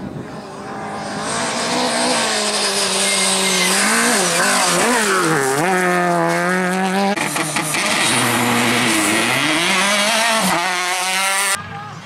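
Rally car engine at high revs, its pitch swooping up and down repeatedly as the driver shifts gears and lifts and floors the throttle. The sound changes abruptly about seven seconds in and again near the end.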